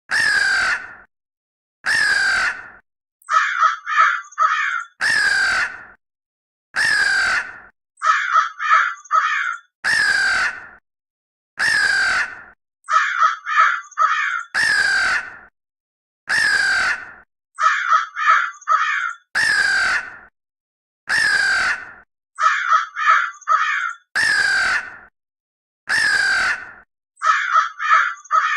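Crow cawing in a repeating pattern: two long harsh caws, then a quick run of four short caws, over and over with clean silent gaps, as a looped sound effect.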